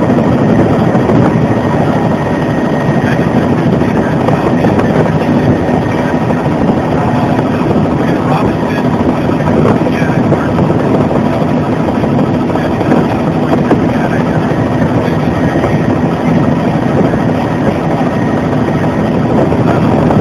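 Bell JetRanger helicopter in flight, heard from inside the cabin: a loud, steady drone of rotor and turbine engine with a faint steady whine above it.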